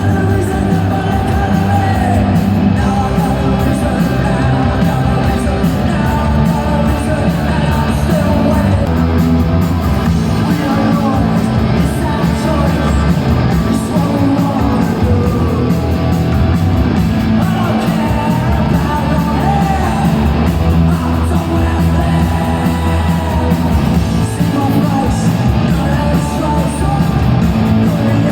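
Live punk rock band playing at full volume, with a singer shouting and singing over the guitars and drums, echoing in a large concert hall.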